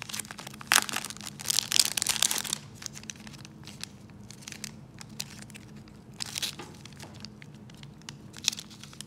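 Paper crinkling and rustling as a folded advertising insert from a 1982 Topps wax pack is handled and unfolded, loudest in a dense burst in the first couple of seconds, then softer scattered rustles.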